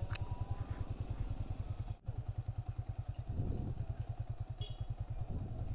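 Yamaha Vixion motorcycle's single-cylinder engine running at low speed, a fast, even low pulsing of its firing strokes, with a brief dip in level about two seconds in.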